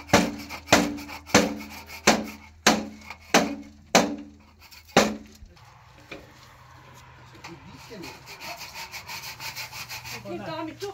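Wood being knocked: about eight sharp knocks, roughly one and a half a second, each with a short low ringing tone. They stop about five seconds in, leaving a quieter low steady noise.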